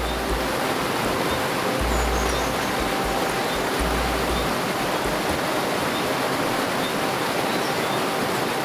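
Steady rush of water from a large waterfall, an even wash of noise throughout.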